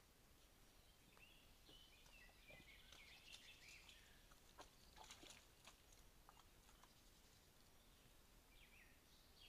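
Faint birdsong: many short chirping calls, with scattered soft clicks and rustles about two to six seconds in.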